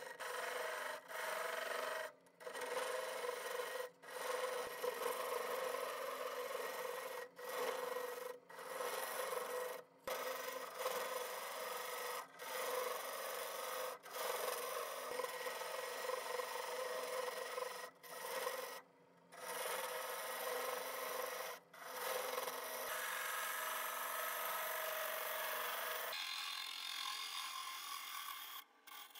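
Wood lathe hollowing a spinning wooden goblet blank with a gouge: a continuous scraping cut into the end grain, broken by brief gaps every second or two as the tool comes off the wood.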